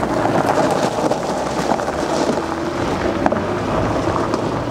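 Mazda MX-5 Miata's four-cylinder engine pulling away on a gravel road, with the tyres crunching over loose stones and scattered sharp ticks of gravel.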